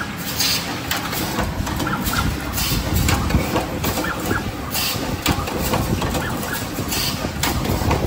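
Automatic double-sided wire crimping machine running: short hisses every second or two over a low mechanical rumble, with scattered clicks from its crimping and feeding mechanism.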